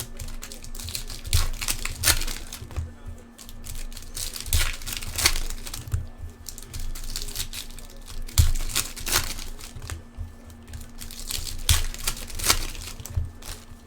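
Trading card pack wrappers being torn open and crinkled as the cards are pulled out and handled: irregular crackles, rips and rustles.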